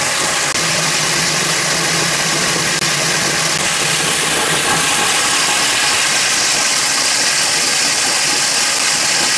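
HMC 500 core drill with a 20-inch (500 mm) core bit running steadily as it cuts through concrete. The drill is working within its normal rated load, with its load lamp held at the first step rather than being pushed into overload.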